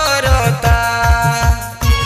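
Instrumental passage of a Bhojpuri song: a quick, steady drum beat under held melody notes. The beat drops out briefly just before the end.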